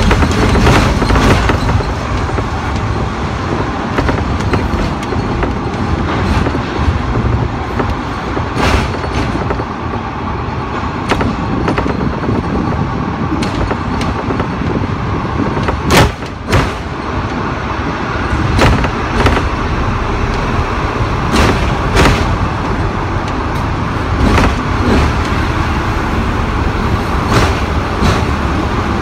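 Hong Kong double-decker electric tram running along street track, heard on board: a steady low rumble with frequent sharp clicks and knocks, one louder knock about sixteen seconds in.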